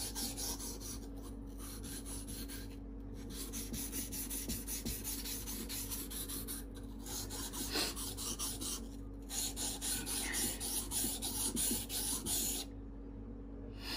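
Steel knife blade scraped back and forth on a soaked 400-grit water stone: a quick run of gritty rubbing strokes with a few short pauses, stopping about a second before the end. The Mora knife's flat Scandi bevel is being ground to put an edge and point back on a dull, battered blade.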